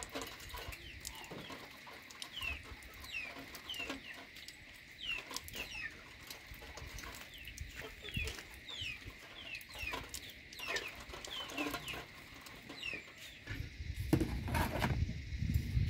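Chickens clucking, with many short, falling, peep-like chirps repeating, over a faint steady high tone. A few louder knocks and handling noises come near the end as a woven tray and basket are handled.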